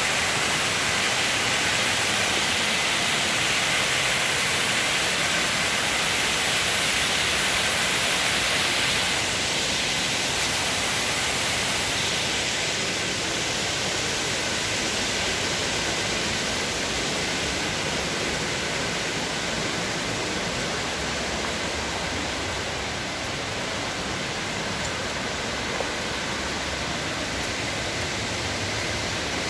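River waterfall and rapids rushing steadily over rock, a little louder for the first nine seconds or so.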